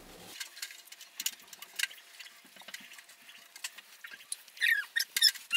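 Hand spreading oil over a wooden cutting board: faint scattered taps and slick rubbing sounds, then a few high squeaks that glide downward near the end.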